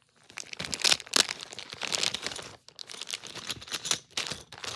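Plastic packaging of spare keyboard keycaps crinkling and crackling in irregular bursts as it is handled and pulled open, loudest about a second in.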